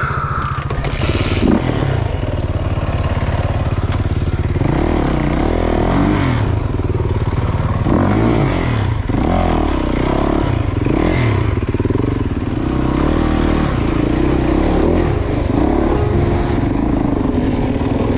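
Off-road motorcycle engine under way on a trail, its revs rising and falling again and again as the throttle is worked, then running steadier near the end. A few knocks and clatter in the first couple of seconds.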